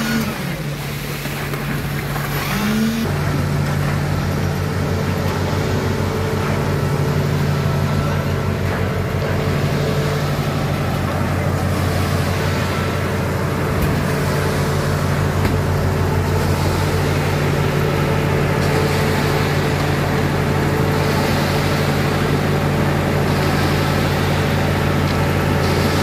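Engines of a concrete mixer pump and the truck mixer feeding it, running steadily. The hum steps up and grows louder about three seconds in, then holds.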